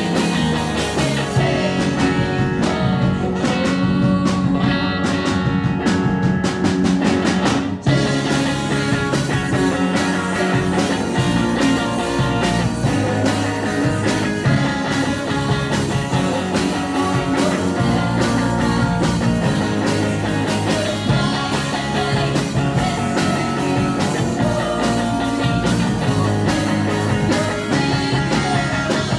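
Live rock band playing: electric guitar, bass, drums and keyboard, with a female lead vocal. About eight seconds in there is a sudden loud accent and the band comes in fuller.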